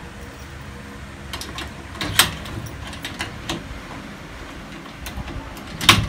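Metal clicks and clinks of a padlock being fitted to a homemade angle-bar and flat-bar gate latch: a scatter of light taps, a sharp click about two seconds in, and the loudest click near the end as the padlock goes on.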